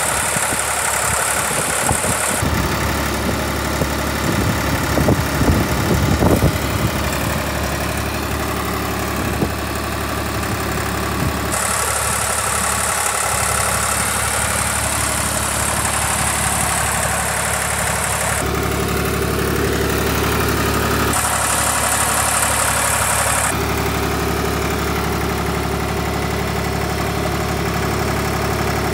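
Ditch Witch trencher's engine running steadily while the rear backhoe is worked, with a high hiss that comes and goes three times. A cluster of knocks and scrapes sounds about four to seven seconds in.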